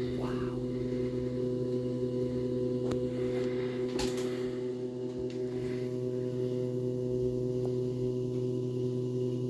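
WeCreat Vision 20W laser engraver running just after power-on: a steady motor hum of several even tones while its lift raises the laser up, with a couple of faint clicks about three and four seconds in.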